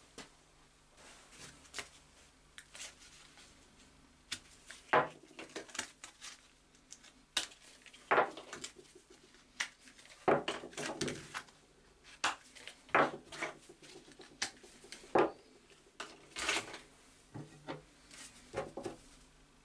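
Plastic file handles being picked up and set down on a wooden workbench: irregular clicks and knocks, a few of them louder.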